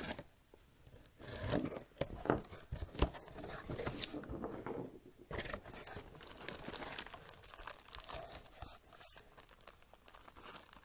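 Packing tape on a cardboard box being slit with a knife and torn away, then the cardboard flaps pulled open and plastic-bagged items crinkling as they are lifted out near the end.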